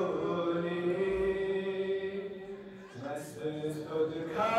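A man's unaccompanied voice chanting a Balti qasida. He holds one long note, breaks off briefly about three seconds in, then begins the next line.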